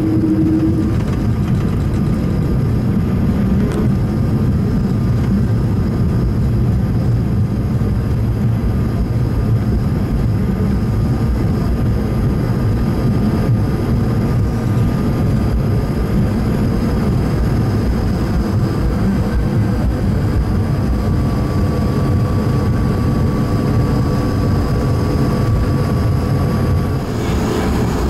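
Cabin noise inside an Airbus A220-100 rolling on the ground after landing: a steady, loud rumble of its Pratt & Whitney PW1500G geared turbofans at low thrust mixed with wheel and airflow noise, with a faint steady whine on top.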